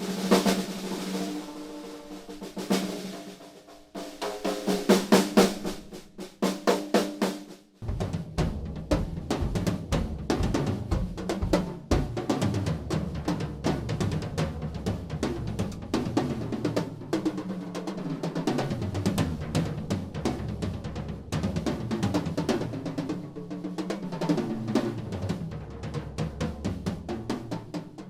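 Yamaha Recording Custom birch drum kit being played: snare rolls and ringing tom strokes for the first several seconds, then a full, steady groove with bass drum and snare from about eight seconds in.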